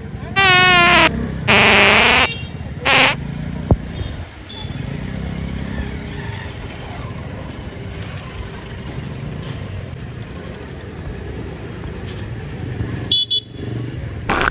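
Loud fake fart sound effects played in short bursts, three close together in the first three seconds and two more near the end, with a wobbling, sputtering pitch. Steady street traffic with motorcycles runs underneath.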